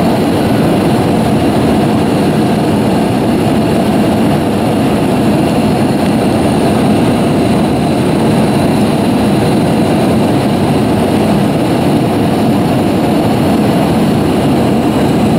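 Steady in-flight cabin noise of an Airbus A319: a constant rush of jet engines and airflow, heard from a window seat over the wing.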